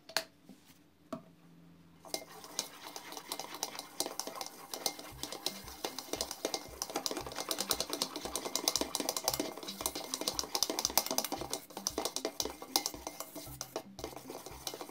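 A whisk beating a foamy toothpaste and shower-gel mixture in an enamel bowl: rapid clicking and scraping of the wires against the bowl, starting about two seconds in. Background music with a steady low beat runs underneath.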